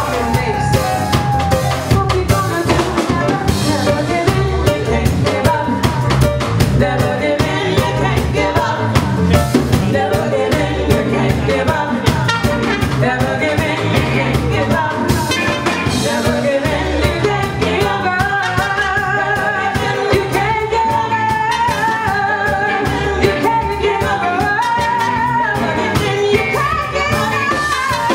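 Live reggae band playing a song with a singer's vocal over a steady drum and bass beat.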